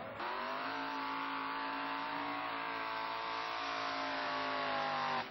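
Engine of a tractor-tyred mud-bog truck running flat out through the mud pit. Its revs climb over the first second, then hold high and steady until the sound stops abruptly at the end.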